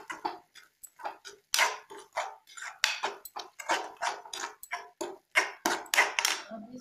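Metal spoon scraping and clinking against a steel kadai while stirring a thick masala paste, in short irregular strokes about two or three a second.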